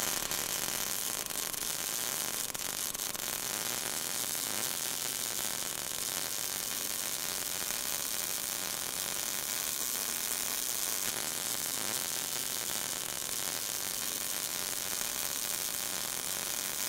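A steady, even hiss with a faint hum beneath it, strongest in the high range, with no breaks or changes.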